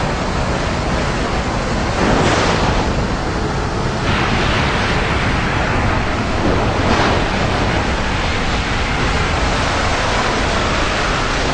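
Racing trucks on a circuit: a loud, dense rush of engine and tyre noise that swells about two seconds in and again about seven seconds in.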